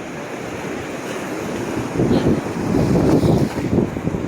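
Wind buffeting the microphone over breaking surf on a beach, the gusts growing louder about halfway through.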